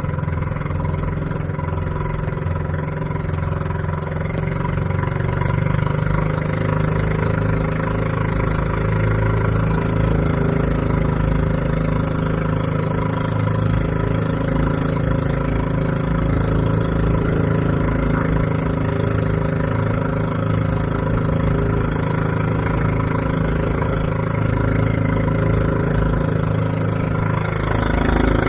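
A small fishing boat's engine running steadily under way, with a brief dip in pitch near the end.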